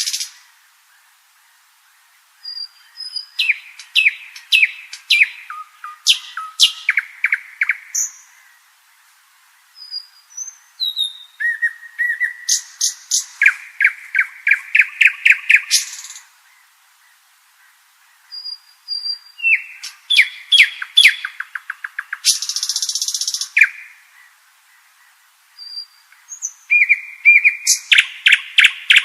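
Common nightingale singing: four varied phrases separated by pauses of a second or two. The phrases are built of fast runs of repeated notes, pure whistles and a harsh buzzy note, and the runs of repeated notes get louder.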